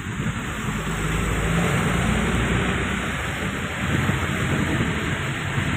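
A truck running close by on a wet, muddy road: a steady low engine rumble with tyre and road noise.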